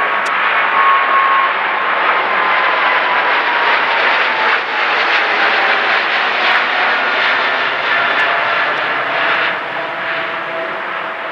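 Boeing 777's twin GE90 turbofan engines at climb thrust just after takeoff, a loud jet noise with a whining tone that slides steadily lower in pitch as the plane passes overhead and flies away, fading near the end.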